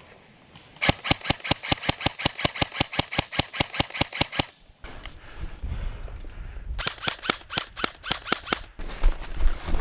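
Airsoft gun firing on full auto: a long burst of evenly spaced shots at about seven a second, and a second, shorter burst a few seconds later over a low rumble.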